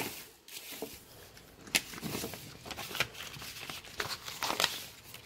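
A cat crunching dry kibble, with irregular sharp crunches spread through the few seconds.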